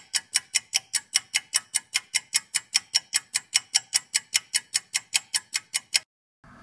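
Mechanical watch ticking fast and evenly, about five ticks a second, the quick beat of a watch balance. The ticking stops abruptly near the end.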